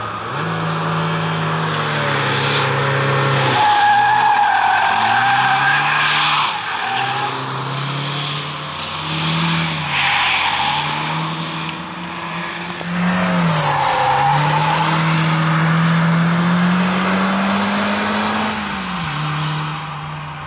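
Peugeot 306 engine being driven hard, its pitch rising and falling over and over as the driver accelerates, lifts and changes gear through tight corners. The tyres squeal in the bends several times, loudest a few seconds in.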